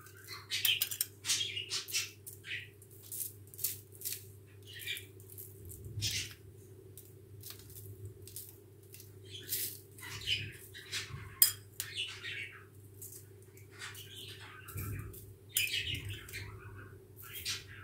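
A metal spoon scooping a dry spice mix from a small glass bowl and scattering it over tomato halves and onion slices on a paper-lined tray: irregular short scratchy scrapes and taps, over a steady low hum.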